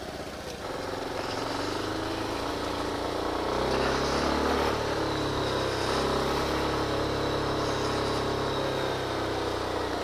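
Motorcycle engine pulling away from a stop, revving up about three and a half seconds in and then running steadily at low road speed.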